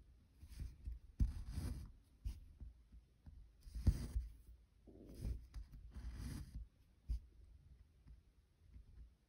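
Cross-stitch needle and floss being drawn through 25-count Zweigart fabric, heard as a series of short scratchy swishes at an irregular pace, about six in all. The strongest comes about four seconds in.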